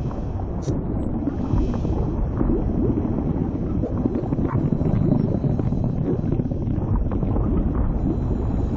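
Low, steady rushing and rumbling noise, the sound-designed ambience of an animated bloodstream, with a few faint, short tones above it.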